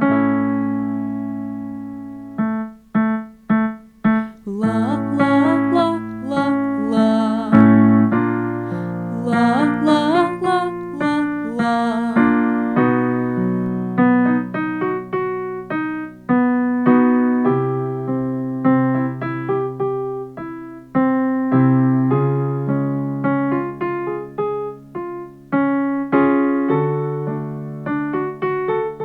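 Keyboard piano playing the accompaniment to a vocal warm-up, chords struck and held, the pattern moving step by step through keys to extend the singer's range. A singing voice is heard over the chords for several seconds in the first half.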